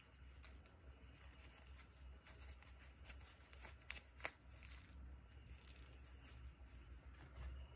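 Faint crackling and rustling of a soft turmeric flatbread being pulled apart by hand, with a few sharper crackles about three to four seconds in, over a low steady hum.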